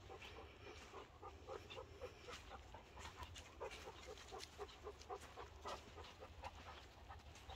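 Weimaraner panting faintly in a quick, steady rhythm, about three breaths a second.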